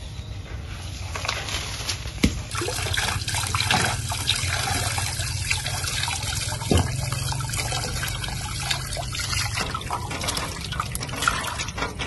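Water running from an outdoor tap and splashing as mustard leaves are rinsed under it into a basin, with a few sharp knocks.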